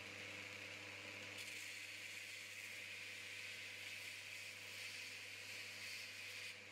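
Belt grinder motor running with a steady hum. About a second and a half in, the steel axe head is pressed onto the belt over the contact wheel and the hiss of steel being ground joins in, as the axe's profile is shaped. The grinding stops just before the end.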